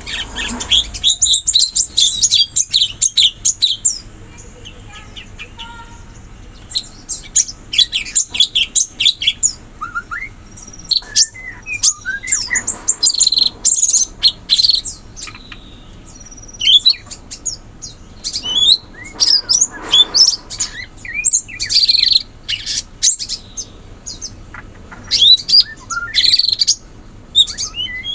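Cucak cungkok bird singing in bursts of rapid, high chirping and sweeping notes, with short pauses between the bursts.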